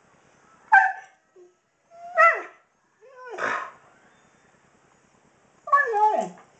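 A 16-year-old Siberian husky vocalizing in four short, howl-like whining calls, each sliding down in pitch, the last and longest near the end.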